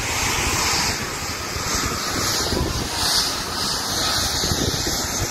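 Wind buffeting the microphone over the wash of surf on the beach.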